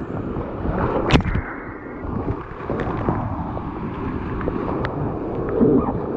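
River water rushing around a raft, with wind buffeting the microphone and a sharp knock about a second in.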